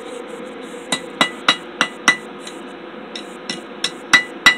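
Hand hammer striking a red-hot mild-steel bar on an anvil, forging its end into a small curl. There are about ten ringing blows, roughly three a second, in two runs with a short break between them, over a steady low hum.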